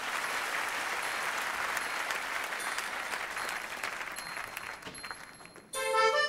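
Audience applauding, the clapping thinning out over about five seconds. Near the end music starts suddenly with sustained notes.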